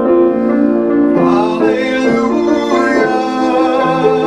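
Background music: a slow Christmas song with piano and a man singing held notes, the word "Hallelujah" sung near the end.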